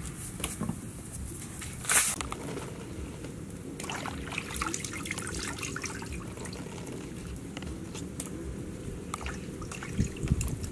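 Water splashing and dripping in a wok as skinned snakes are dipped in and lifted out to be washed. There is one loud splash about two seconds in, a run of smaller splashes and drips after it, and a dull knock near the end.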